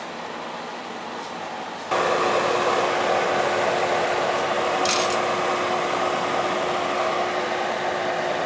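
An electric fan or motor switches on abruptly about two seconds in and runs steadily, a whooshing noise with a steady hum.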